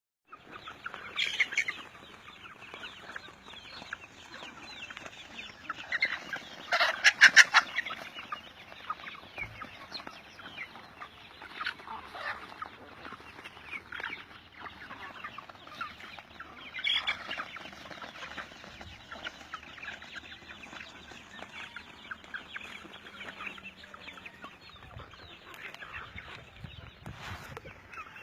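A flock of chickens clucking and cheeping continuously, with louder squawking bursts about a second in, around seven seconds in (the loudest), and again about seventeen seconds in.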